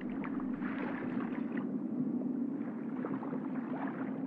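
Underwater ambience: a steady low hum with faint, scattered gurgling.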